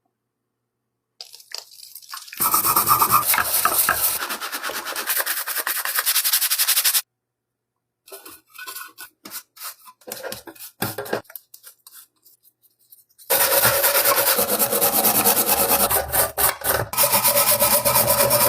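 Rough rubbing and scraping, like abrasive work such as filing or sanding, in three separate stretches. The first and last are loud and continuous; the middle one is broken into short, uneven strokes.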